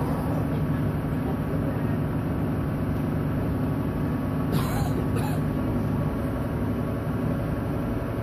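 Tractor engine running steadily as it tows a passenger trailer along a farm track, heard from the trailer. Two short noises stand out about halfway through.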